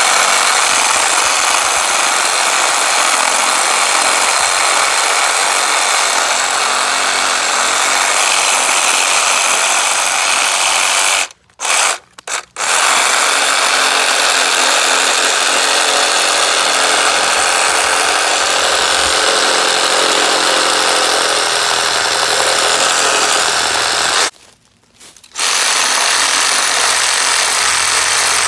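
Hyper Tough 20V cordless reciprocating saw cutting through tree limbs, the blade sawing back and forth with a steady, loud buzz. It stops briefly twice, about eleven seconds in and again about twenty-four seconds in, then carries on.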